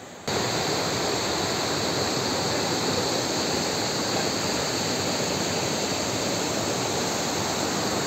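Rapids of a river in monsoon spate, the muddy white water rushing over boulders: a steady, loud rush of water that cuts in suddenly.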